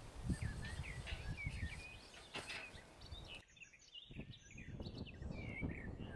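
Small birds chirping and twittering repeatedly, short high calls, over a low rumble of outdoor noise.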